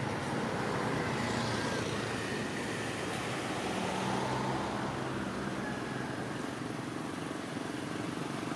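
Steady outdoor background noise with a faint low engine hum from motor vehicles, strongest in the middle.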